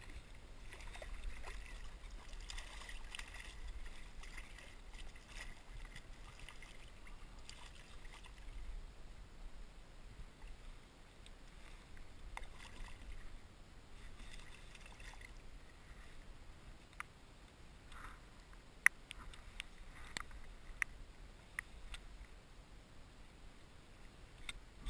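Faint water splashing and lapping around a kayak as a hooked striped bass thrashes at the surface alongside, busiest in the first several seconds. Later come a handful of sharp, separate clicks and knocks.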